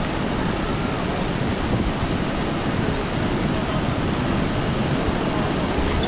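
Steady rushing of falling and churning water from Niagara Falls and the whitewater below, with wind buffeting the microphone.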